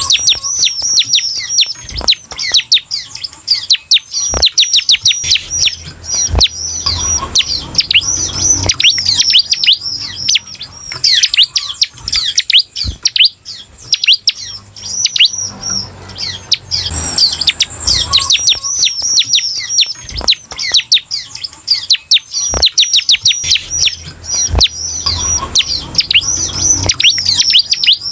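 Bar-winged prinia (ciblek) singing its fast 'semi' chatter song: a rapid run of high, downward-sweeping notes, repeated in long bursts with short breaks. A few short knocks come in between.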